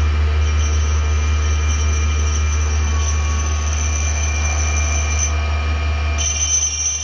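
Cook's Cat Claw bandsaw-blade sharpener's grinding wheel running with a steady motor hum while a dressing stone is held against its face, giving a high-pitched scraping squeal that drops out briefly about five seconds in. The wheel face is being dressed smooth and flat.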